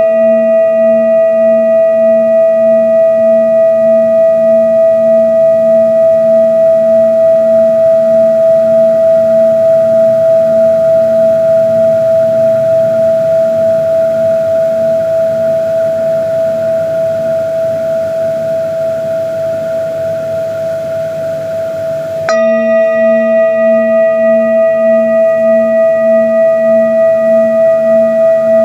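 Singing bowl ringing with a slow, pulsing waver and slowly fading, then struck again about 22 seconds in and ringing on at full strength.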